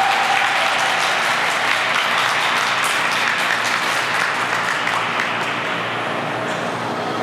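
Arena audience applauding a figure skating performance, a dense steady clapping that slowly dies down.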